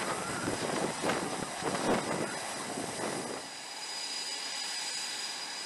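Jet aircraft engines running on an aircraft carrier's flight deck: a steady rushing noise with a thin, high whine, somewhat busier and louder during the first three seconds.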